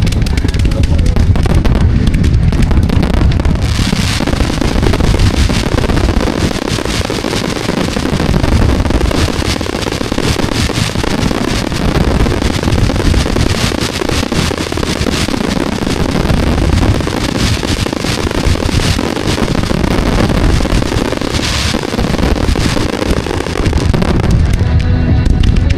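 Fireworks going off in a dense, continuous barrage of rapid crackles and bangs, thickest from about four seconds in until near the end, with music playing throughout.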